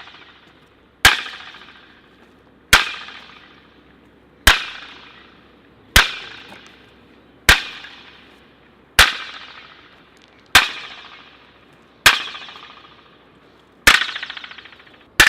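A sharp impact repeated about every second and a half, ten times, each followed by a long ringing echo that fades away. The strong, reverberant echo is the 'weird sound effect'.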